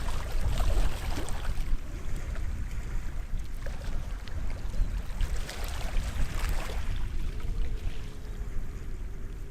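Small waves washing onto the shore of a sheltered harbour bay, swelling into a hiss at the start and again about six seconds in, over a steady low rumble.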